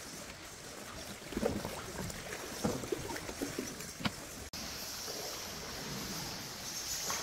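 Water sloshing and splashing around a stand-up paddleboard in irregular knocks and slaps. About halfway through the sound cuts abruptly to a steady high hiss.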